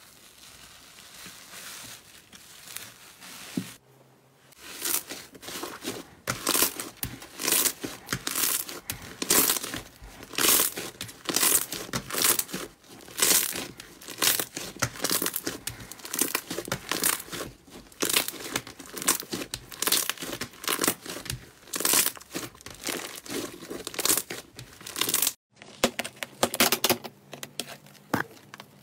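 Slime squeezed, poked and stretched by hand, giving crisp crackling and popping in quick bunches. It is soft at first, then denser and louder after a brief break about four seconds in.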